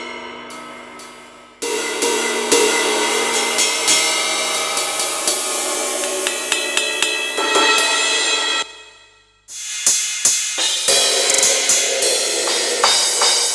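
Drum-kit and cymbal samples played on an Avatar PD-705 electronic percussion pad: a cymbal ringing out and fading, then a long cymbal wash over repeated drum hits that cuts off sharply, and after a short gap a run of separate drum and cymbal strikes.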